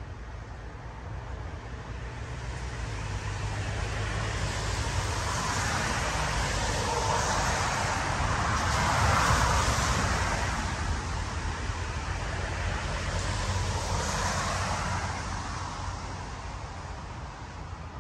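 A road vehicle passing: a rushing noise over a low rumble that swells slowly to its loudest about halfway through, eases, rises a little again near the end, then fades.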